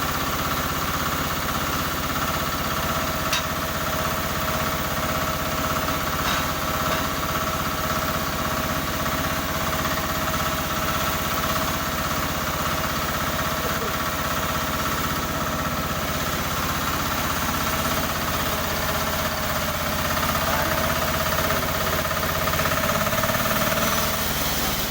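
Newly assembled sawmill machine running steadily on its engine during a test run, with a steady high tone over the engine's low running. Near the end the engine note shifts slightly and gets a little louder.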